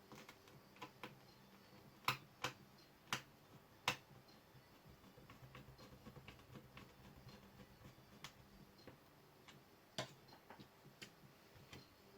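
Scattered light, sharp clicks and taps of small laptop parts and connectors being handled and fitted during reassembly, with four louder clicks about two to four seconds in and another near the end.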